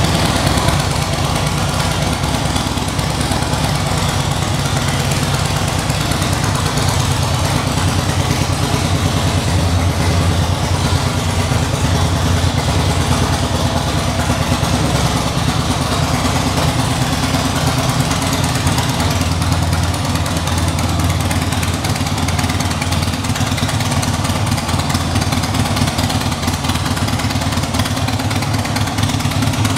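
2006 Harley-Davidson Dyna Street Bob (FXDBI) with its fuel-injected Twin Cam 88 V-twin idling steadily through the stock exhaust.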